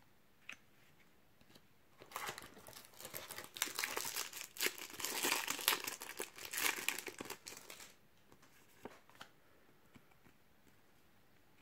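Foil trading-card packet crinkling and tearing open for several seconds, a dense crackle starting about two seconds in. It dies away about eight seconds in, leaving a few faint clicks of the cards being handled.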